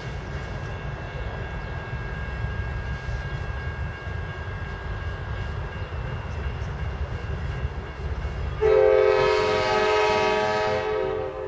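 Diesel freight locomotive's air horn sounding one long chorded blast of about two and a half seconds, starting sharply a little past two-thirds of the way in. Under it runs a steady low rumble as the train approaches.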